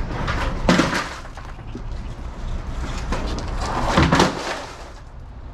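Two heavy thumps about three seconds apart, over a steady low rumble.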